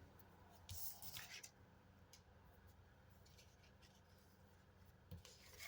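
Near silence, with faint paper rustling and scraping from a scratch-off lottery ticket being handled, briefly about a second in and again as small ticks near the end.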